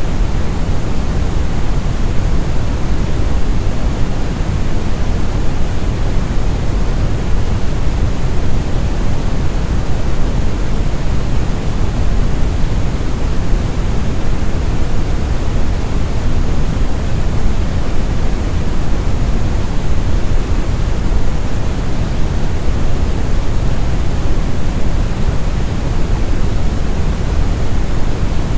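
Synthetic brown noise: a steady, smooth, deep rumbling hiss with most of its weight in the bass and little treble.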